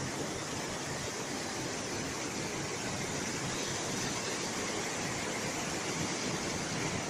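Waterfall cascading over rocks: a steady, unbroken rush of white water.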